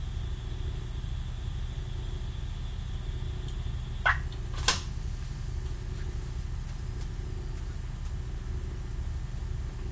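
Y1 diesel railcar's engine idling while the railcar stands still, a steady low rumble heard from the driver's cab. About four seconds in come two short, sharp clicks about half a second apart.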